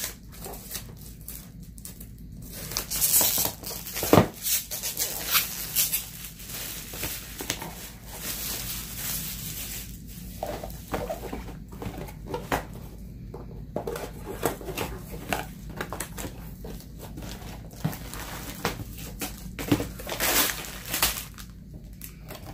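Cardboard kit box and plastic packaging being opened and unpacked by hand: irregular rustling and plastic crinkling, with scattered sharp taps and knocks.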